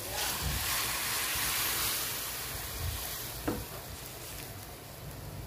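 Hot water poured from a pot into a hot steel wok of sautéed pork and liver, sizzling as it hits the hot pan. The sizzle swells over the first two seconds and dies down as the wok fills with liquid, with a light clink about three and a half seconds in.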